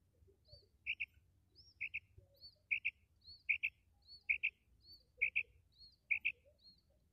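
Female quail calling: a quick two-note call repeated seven times, a little under one per second. Fainter, higher arched chirps fall between the calls.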